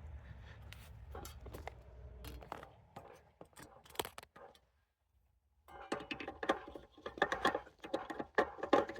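Hands working on metal HVAC parts: scattered clicks and scrapes over a low hum that stops after about two and a half seconds. After a brief gap, a stretch of denser metallic clicking and rattling with a slight ring.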